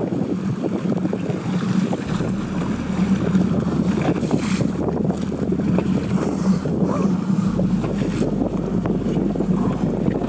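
Boat's motor running with a steady hum while wind buffets the microphone heavily.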